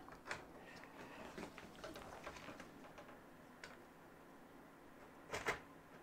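Faint clicks, taps and scrapes of a motherboard and metal case parts being handled as the board is worked into a cramped mini-ITX PC case, with a sharper double click near the end.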